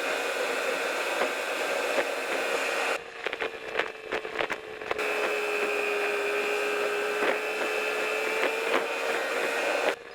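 Kia K5 cabin noise at highway speed: a steady drone with road and wind hiss and a held whining tone that drifts slightly in pitch. About three seconds in, the hiss drops away for about two seconds with a few clicks, then returns.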